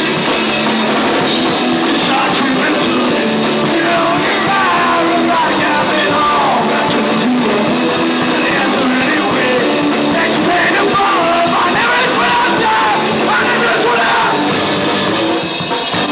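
Punk rock band playing live on electric guitars and drum kit, loud and steady throughout.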